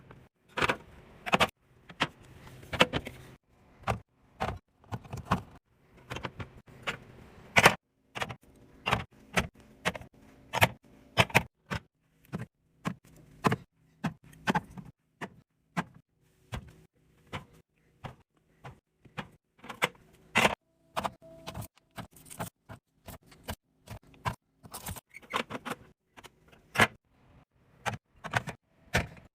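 Containers being handled and set down while a fridge is cleared and reorganized: a long run of sharp, irregular clacks and knocks, roughly one or two a second.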